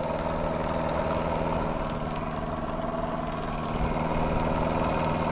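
Martin Baylis twin-cylinder model marine steam engine ticking over steadily, its boiler at about 40 psi.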